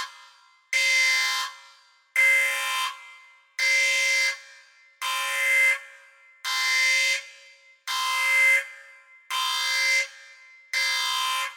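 Spaceship alarm sound effect: a horn-like alarm blast at one steady pitch, repeating about every second and a half. Each blast lasts under a second and then fades, about eight blasts in all.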